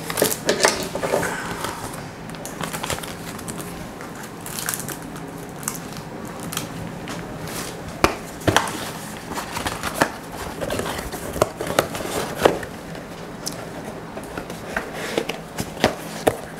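Plastic packaging crinkling and rustling as it is handled, with scattered clicks and taps.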